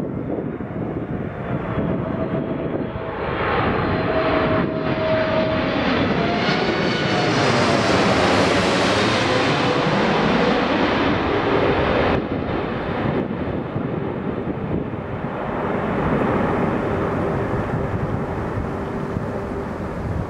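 Boeing 747-8F freighter's four GEnx-2B turbofans rumbling and whining as it passes low overhead on landing approach, loudest about halfway through. The whine drops in pitch as the jet goes by and away.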